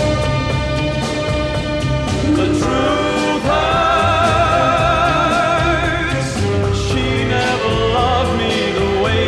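A 1960s pop ballad record: a male crooner singing with a wide vibrato over an orchestral backing with a steady beat.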